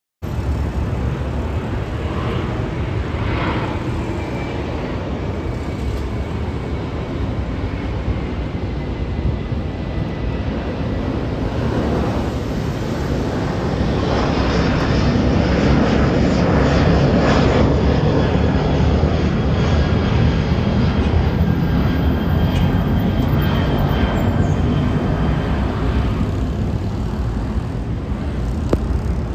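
Iberia Airbus A330-200 airliner climbing out after takeoff, its jet engines giving a steady rushing rumble with a faint high whine over it. It grows louder to a peak about halfway through as the aircraft passes overhead.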